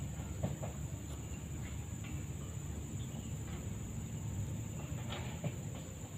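Creek-side ambience: a steady, high-pitched insect drone, crickets by the sound of it, over a low rumble. There are a few faint clicks and rustles, about half a second in and again near the end.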